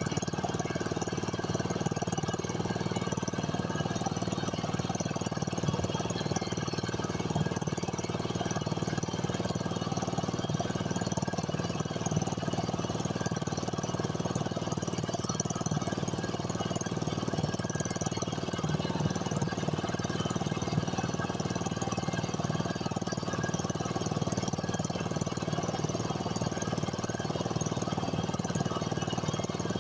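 A small wooden boat's engine running steadily while the boat is under way, with water and wind noise beneath it.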